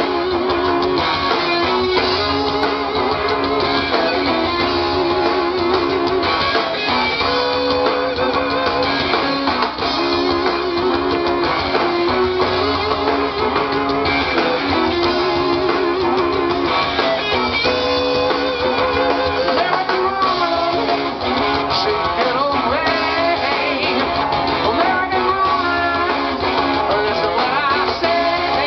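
Live rock band playing through a PA system: electric guitars, electric bass and a drum kit, playing steadily throughout.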